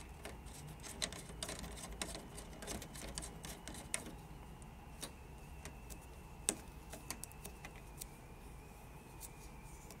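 Faint, irregular small clicks and ticks of a Wi-Fi antenna being screwed onto the threaded connector of a PCIe Wi-Fi card and handled against the metal PC case, with the sharpest click about six and a half seconds in.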